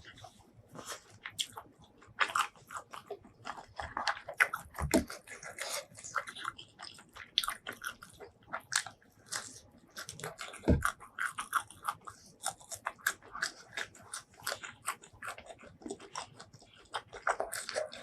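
Close-miked eating: biting and chewing with crisp crunches and wet mouth clicks, several a second, and a couple of heavier bites.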